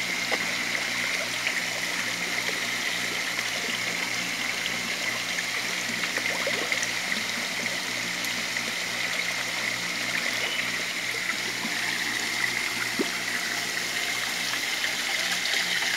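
Steady trickle of water running into a tilapia tank from its pumped filtration system, with a faint low hum underneath.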